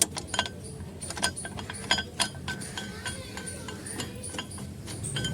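Irregular metallic clicks and clinks as a bolt and hand tools are worked into the brake caliper of a Maruti Suzuki WagonR during a brake disc and pad change.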